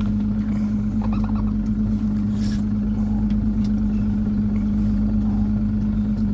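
A boat's motor idling with a steady, unchanging hum.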